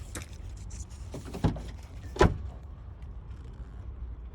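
Two dull thumps less than a second apart, the second the louder, as the car's body or interior is knocked against, over a low steady rumble.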